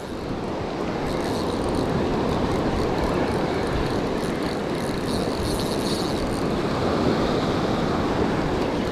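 Steady rush of breaking surf and wind on the microphone.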